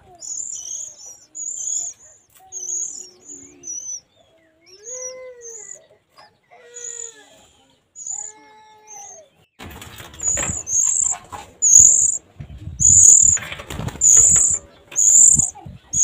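Oriental magpie-robin nestlings giving repeated high, short begging calls. About ten seconds in the calls grow louder and faster, mixed with rustling and wing-flutter as an adult lands at the nest.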